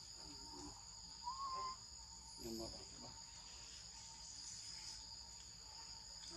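Steady, high-pitched chorus of insects droning without a break. A short squeak comes about a second in, and a brief low call about two and a half seconds in.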